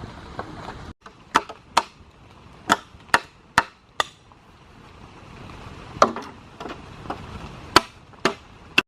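Wood being chopped by hand: about a dozen sharp, separate strokes in two runs, each landing roughly every half second.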